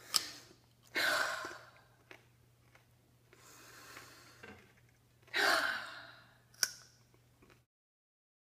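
Two loud, breathy sighs or heavy breaths, about a second in and about five and a half seconds in, with short sharp clicks near the start and shortly after the second breath, over a faint steady hum.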